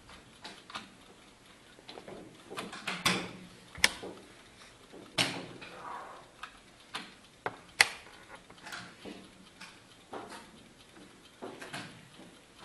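Blitz chess in play: wooden chess pieces set down on the board and the buttons of an analog chess clock pressed. It makes an irregular series of clicks and knocks, the two sharpest about four and eight seconds in.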